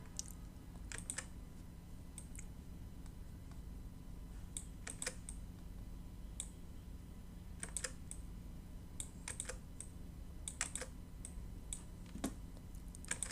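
Scattered clicks of a computer mouse and keyboard, often in quick pairs or small clusters, over a low steady hum.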